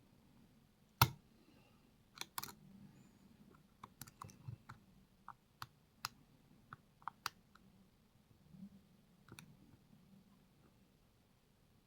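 Lock pick and tension wrench working the pins of a pin tumbler lock: scattered light metallic clicks at irregular intervals, the loudest about a second in.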